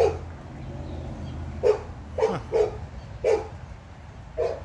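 A dog barking: six short barks at uneven intervals, two of them close together near the middle.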